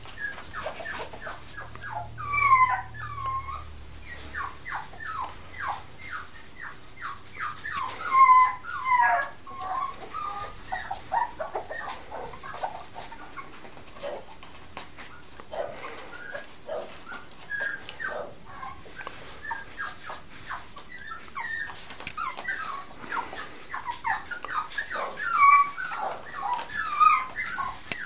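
An eight-and-a-half-week-old Norfolk terrier puppy whining and yipping in a near-continuous run of short, high-pitched calls that slide up and down in pitch, with a few louder yelps, while it plays with a shoe.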